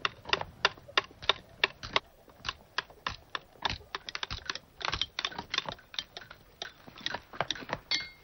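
Hammer striking a chisel on a stone block: a stonemason carving, with quick, irregular sharp taps, several a second.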